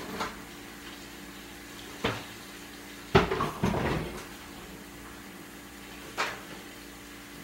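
A few sharp knocks and clatters of things being handled in a kitchen, the loudest cluster about three seconds in, over a steady low hum.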